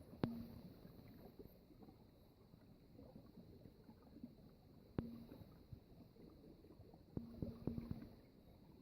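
Water trickling faintly in a frozen stream, with single drops plunking into water with a short hollow ring about a quarter second in and again around five seconds, then a quick flurry of several drops near the end.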